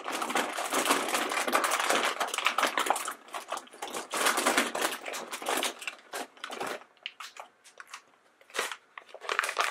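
A hand rummages through a bin crammed with plastic blind-bag packets, and the packets crinkle and rustle continuously. After about seven seconds it thins to a few scattered crinkles as one bag is drawn out.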